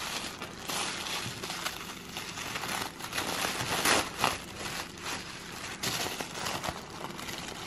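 Tissue paper crinkling and rustling as it is unwrapped by hand, with irregular crackles and a few louder crinkles about halfway through.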